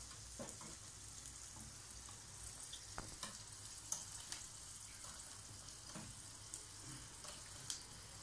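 Meat patties and small lamb skewers sizzling on an electric tabletop grill, a steady quiet hiss, with a few light clicks of metal tongs as the patties are turned.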